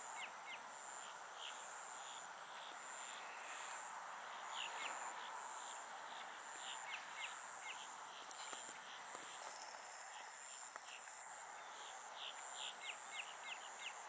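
Faint insect chorus: a steady pulsing high trill with many short, quickly repeated chirps, and a brief higher buzz joining for a second or two past the middle.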